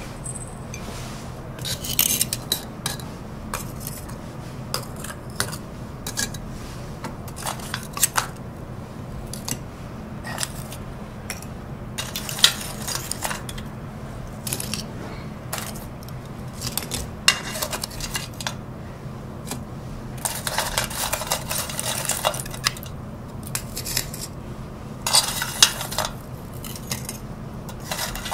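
Pieces of hot lump charcoal clinking and clattering against each other and the iron pot as they are picked up with metal fire chopsticks and stacked in an ash brazier, with bursts of clatter about 2 s, 12 s, 20 s and 25 s in. A steady low hum runs underneath.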